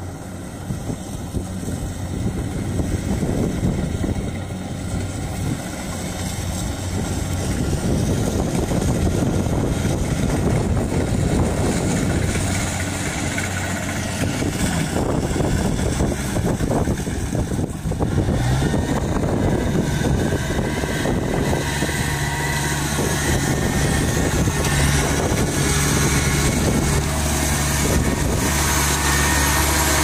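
Kubota DC-70 Plus rice combine harvester's diesel engine running steadily as the machine cuts and threshes rice, growing louder over the first several seconds.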